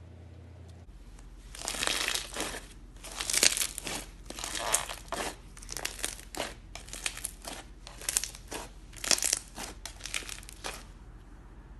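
Green foam-bead slime (floam) squeezed and pressed by hand, the beads crackling and popping in irregular bursts that begin about a second and a half in, over a low steady hum.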